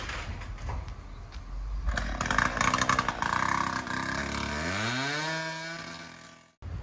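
Demolition machinery working: clattering and knocking, then a heavy machine's engine revs up in a rising whine and holds high revs. It fades and cuts off abruptly near the end.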